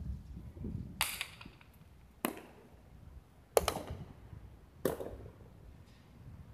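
Four sharp cracks, each with a short echo and about a second and a quarter apart, of a hard jai alai ball (pelota) striking the fronton's walls and court. The third crack is the loudest.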